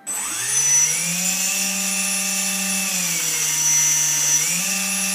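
Two small electric RC airplane motors spin up suddenly and whine. Their pitch shifts several times as the rudder stick works the differential throttle at full throw, one motor speeding up while the other slows.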